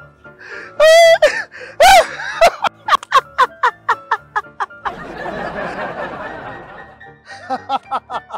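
A man laughing loudly in public: high-pitched wavering cackles, then rapid runs of short ha-ha-ha bursts with a breathy stretch in the middle, over background music.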